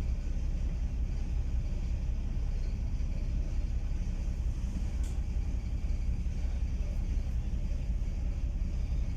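Strong wind buffeting the microphone aboard a sightseeing boat: a steady low rumble.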